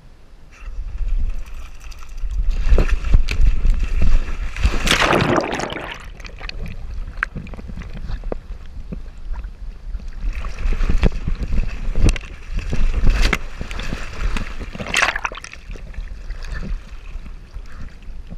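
A dog wading and swimming in a river, its legs splashing and sloshing the water, heard through a camera strapped to its back, with a constant low rumble of wind and movement on the microphone and scattered knocks. Two louder rushes of splashing come about five seconds in and again about ten seconds later.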